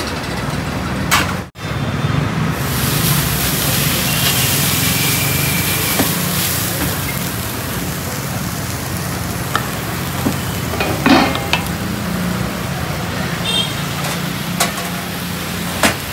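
A large hot dosa griddle sizzling as steam comes off it, the hiss starting strongly about two seconds in and slowly dying away, over a steady low hum. There are a few sharp clinks of utensils near the end.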